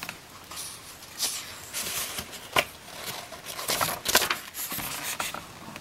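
Paper rustling and sliding as a page of a hardcover picture book is turned by hand, in a series of short crisp rustles.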